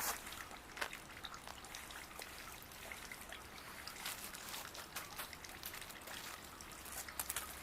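Faint water trickling from a small garden waterfall, with scattered light clicks and ticks.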